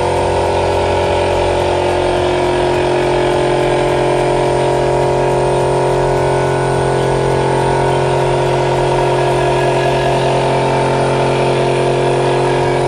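Electric air compressor feeding an airbrush, its motor running steadily with a loud, even drone that can drown out a voice.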